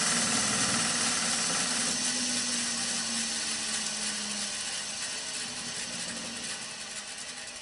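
8-inch bench grinder spinning down after being switched off: the motor hum and wheel whir fade steadily, and the pitch sags slightly as the wheels coast to a stop.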